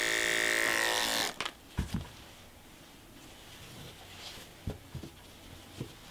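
Electric hair clippers buzzing steadily as they shave fur on a dog's foreleg, switched off about a second in. After that come a few soft knocks of handling.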